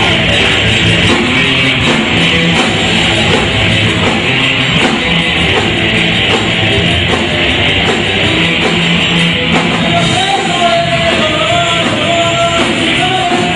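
Live alternative rock band playing loud and steady: two electric guitars, bass guitar and drum kit.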